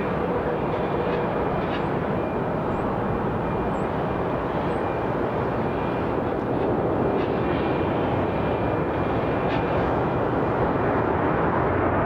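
Jet airliner noise, a steady rushing that swells slightly in the second half: a United Boeing 737 MAX 8, with its CFM LEAP-1B turbofans, arriving on the runway.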